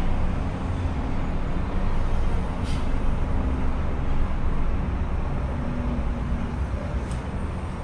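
A steady low rumble, with a few faint short clicks about three seconds and seven seconds in.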